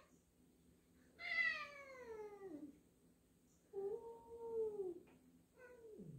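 Two domestic cats meowing at each other in three drawn-out yowls, each sliding down in pitch, the first the loudest and the last dropping low at the end. These are the uneasy calls of a resident cat meeting a new cat.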